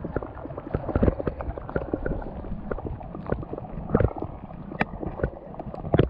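Shallow seawater sloshing and splashing unevenly, with many short sharp knocks and clicks, as clams are scooped up by hand.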